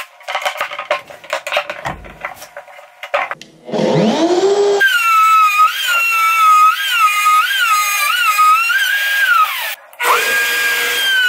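Knocks and clicks as an aluminium track guide is handled and set on plywood, then a DeWalt compact router spins up about four seconds in and runs with a high whine whose pitch dips and recovers as it cuts a dado. The whine cuts out briefly near the end and then returns, falling slowly in pitch.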